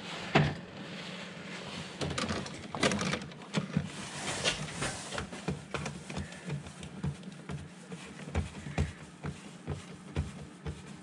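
Irregular clicks, knocks and rustling from hands handling wires and small parts in an electrical distribution board, with one sharp knock about half a second in.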